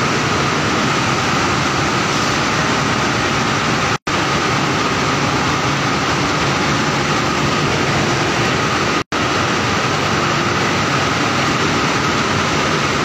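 LMW LDAZ finisher draw frame running: a steady, loud machine noise with a steady high hum in it. It cuts out twice for an instant.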